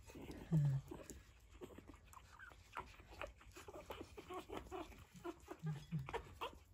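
Pug puppies lapping milk from a plate: many quiet, quick wet clicks, with a few short low grunts, one about half a second in and two close together near the end.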